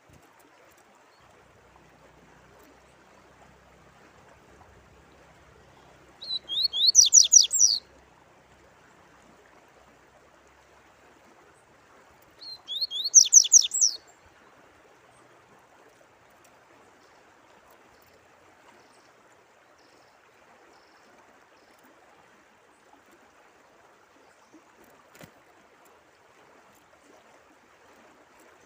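A songbird sings two short phrases of rapid, high, chattering notes about six seconds apart, over the faint steady sound of running water.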